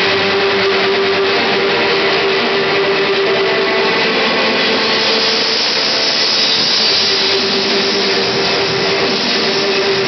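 Loud, heavily distorted music over a hall PA, starting suddenly and sounding like a steady roar, with a long held low note and other shorter notes under it.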